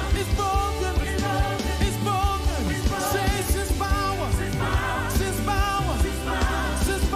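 Live gospel worship song: a group of singers singing into microphones over a band with bass and a steady drum beat.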